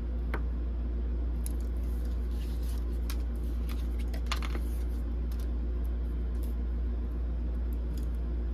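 Tarot cards being handled: faint scattered taps, slides and brief rustles of card stock, over a steady low hum.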